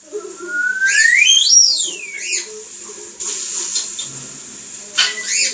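African grey parrot whistling: one long whistle that rises steadily in pitch and then falls, followed by shorter whistled calls.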